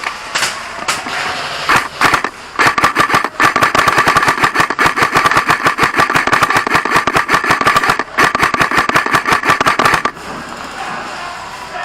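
Airsoft electric rifles firing long full-auto bursts: a rapid rattle of shots over a steady whine. It starts about two and a half seconds in, breaks off briefly twice, and stops about ten seconds in, with a few scattered single shots before it.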